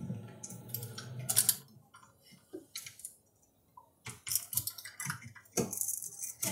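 Faint, irregular clicks and scratches of a utility knife blade tip and fingernails picking at the edge of vinyl seam tape on an RV wall panel, working it loose.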